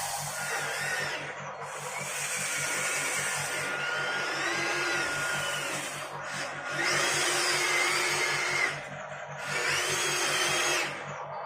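Small electric motors of radio-controlled model trucks whirring in about five bursts, their whine rising and falling in pitch as the throttle is worked.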